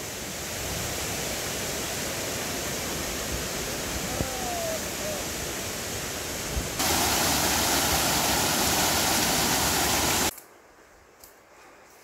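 Cascading water of a rocky mountain stream, a steady rush. About seven seconds in it jumps to a louder, brighter rush, and near the end it cuts off abruptly to a quiet background.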